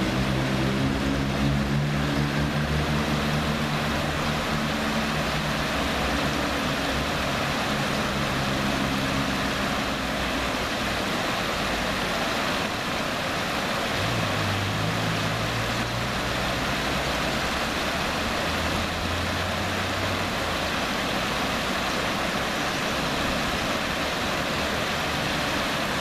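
River water rushing steadily over shallow rapids. A low engine hum from a passing motor vehicle or aircraft sits under it for the first ten seconds and again from about 14 to 20 seconds in.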